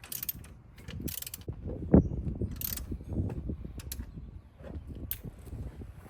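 Hand ratchet wrench clicking in short bursts, with scattered metal tool knocks, the loudest about two seconds in.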